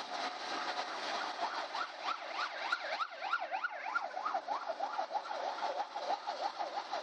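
Police motorcycle siren sounding a yelp, starting about a second in. Its pitch sweeps rapidly up and down, a few times a second, and speeds up near the end. Steady bus engine and road noise runs underneath.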